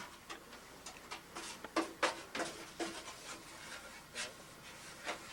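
Irregular light scraping, rubbing and tapping at a furnace pipe, with a few sharper clicks scattered through it.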